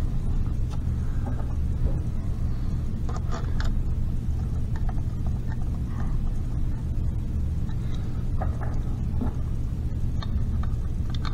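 Scattered light metallic clicks and taps as bolts and small parts are handled and set on a transmission's shift drum pillow blocks, over a steady low hum.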